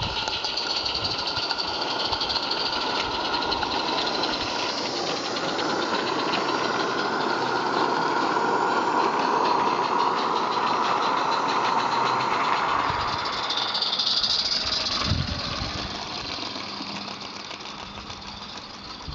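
Small live-steam garden-railway locomotive running with a train, a fast hissing chuff with the coaches' wheels rattling on the track; it swells as the train passes close and fades as it runs off.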